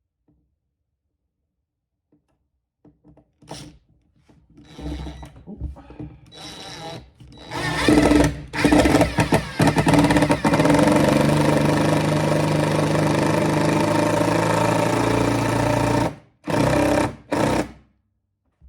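Power drill driving a screw. It starts with a few short trigger pulls, then runs steadily for about eight seconds, then gives two short bursts to seat the screw.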